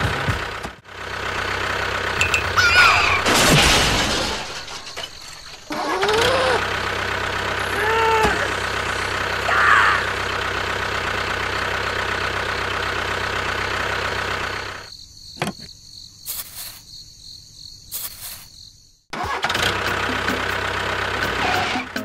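Mini tractor running steadily with an engine-like drone, with several short rising-and-falling whistle-like chirps in the first half. The drone drops away for a few seconds past the middle and comes back near the end.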